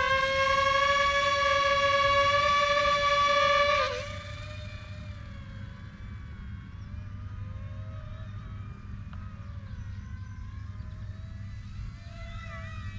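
Electric motor and propeller of a small RC P-51D Mustang plane, a high steady whine. About four seconds in it drops sharply and carries on much fainter, wavering up and down in pitch.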